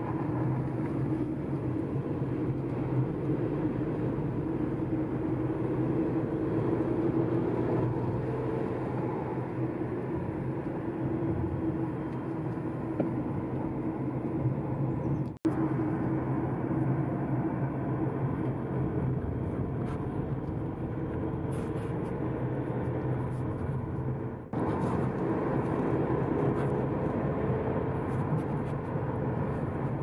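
A car driving on a winding road, heard from inside: steady engine hum and tyre noise. The sound drops out briefly about halfway through and again about three-quarters of the way in.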